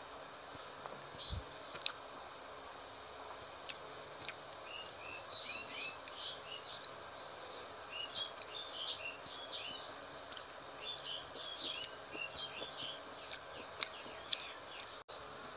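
Small birds chirping in quick clusters of short high notes, over clicks and smacks of chewing close to the microphone; a dull thump about a second in.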